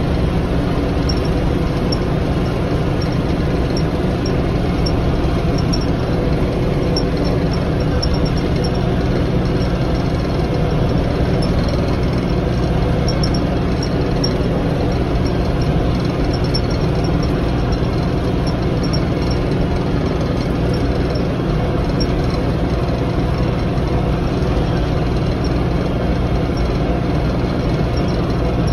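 LS MT347 tractor's diesel engine running steadily under load while mowing, a constant low rumble with no change in speed.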